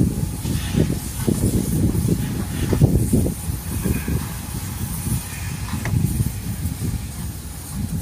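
Car wash vacuum running, with a steady high hiss of suction over a low rumble that rises and falls.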